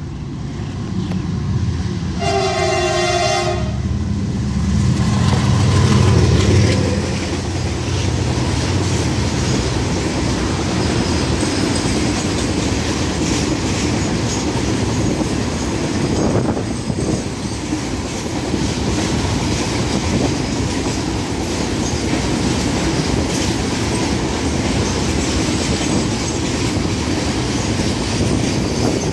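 A goods locomotive sounds its horn once, briefly, about two seconds in, then runs close past. It is loudest a few seconds later, and a long string of petroleum tank wagons follows, rolling by with a steady clickety-clack of wheels over the rail joints.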